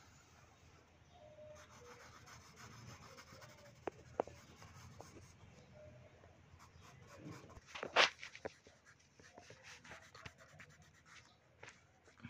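Graphite drawing pencil scratching over paper in short shading strokes, with a couple of small ticks about four seconds in and one louder sharp tap about eight seconds in.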